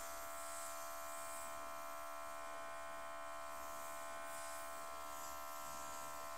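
Small no-name cordless airbrush compressor running at a steady, unchanging pitch under continuous spraying, with air hissing from the airbrush.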